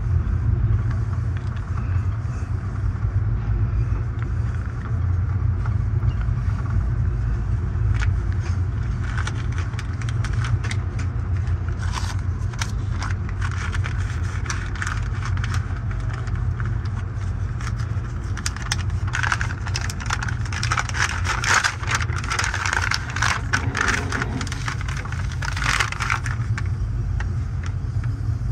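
Amtrak Superliner coach rolling along the track with a steady low rumble from its wheels and trucks. From about a third of the way in, metallic rattling and scraping builds on top of it and is loudest in the last third.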